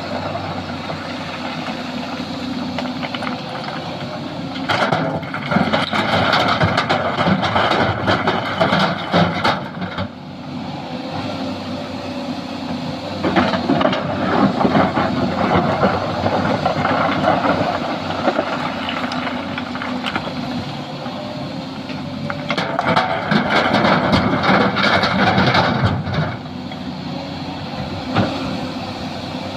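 Sany SY215C hydraulic excavator working, its diesel engine running steadily. Three louder, rougher stretches of several seconds each come about five, thirteen and twenty-two seconds in.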